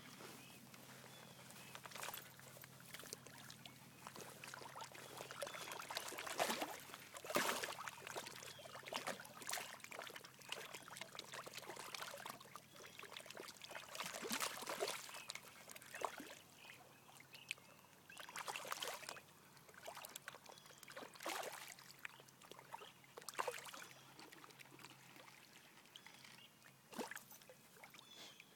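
Water splashing and sloshing in irregular splashes, a few seconds apart, as something stirs the water where the catfish are, over a faint steady low hum.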